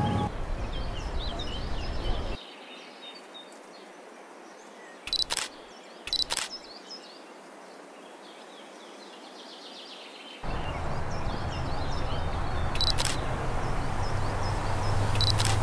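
Camera shutter clicking four times, each a short double click, over outdoor ambience of birds chirping. A low rumbling background noise runs for the first two seconds and comes back from about ten seconds in.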